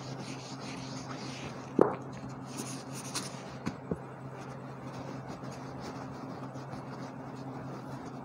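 A whiteboard being wiped clean with a cloth eraser: a soft, irregular rubbing. There is one sharp knock a little under two seconds in and a few lighter taps a second or two later, over a steady low hum.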